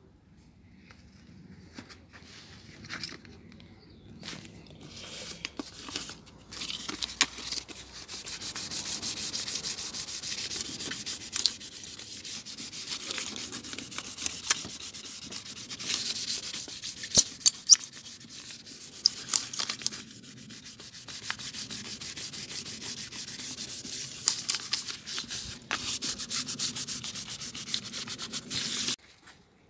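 Sandpaper rubbed by hand over an aluminium alloy wheel's spokes in quick scratchy strokes, scuffing the old finish before spray painting. Light handling rustles and a few clicks lead in, the sanding starts about a fifth of the way in, and it stops abruptly near the end.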